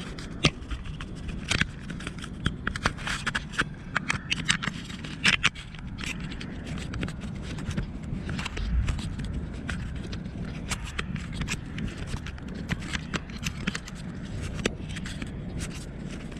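Irregular clicks and scrapes of handling noise close to the microphone, thick for the first six seconds and sparser after, over a steady low rumble.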